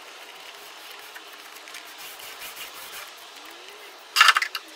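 Faint scratchy strokes of a foam brush working epoxy resin into fiberglass tape, then a brief loud rustling clatter a little after four seconds in, made of several quick hits close together.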